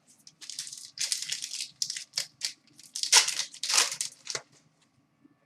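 Crinkling and rustling of trading-card packs and cards being handled and opened: a string of short, sharp crinkles for about four seconds that stops about a second before the end.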